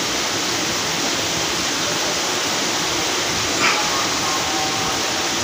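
Steady rush of spring water flowing into a stone-lined bathing pool.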